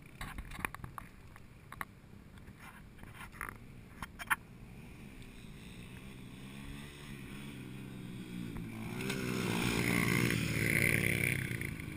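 Dirt bike engine getting steadily louder and rising in pitch from about halfway through, as if approaching on the track. A few short clicks and knocks come in the first four seconds.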